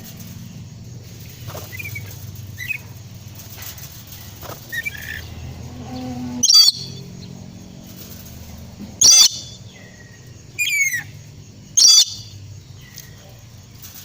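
Nuri parrot (lory) giving four short, loud, shrill screeches spread over the second half, with a few soft chirps before them.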